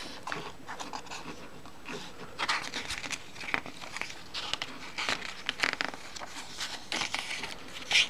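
Paper pages of a page-a-day desk calendar being flipped over by hand: a run of short, irregular rustles and flicks that starts a couple of seconds in, the loudest one near the end.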